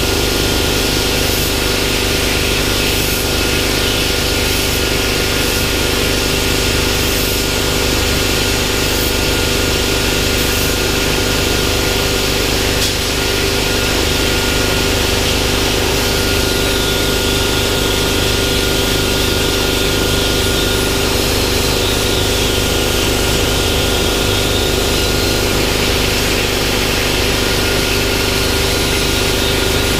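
Hypertherm 65 plasma cutter on a CNC plasma table cutting steel plate: a loud, steady hiss of the plasma arc and air jet, with a steady hum underneath.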